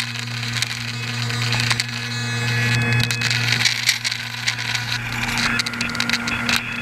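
Electric motor and propeller of an RC airboat running with a steady low hum, overlaid by a dense crackle of small clicks.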